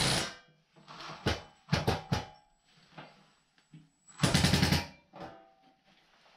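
Cordless drill driving screws to fasten the hanging bracket onto the propane heater's heat shield. It runs in several short bursts, ending in a longer rapid rattle of under a second about four seconds in.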